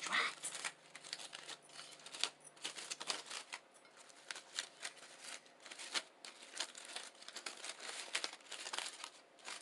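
Close-miked crinkling and rustling with irregular sharp crackles and clicks as a breakfast burrito and its wrapper are handled and eaten.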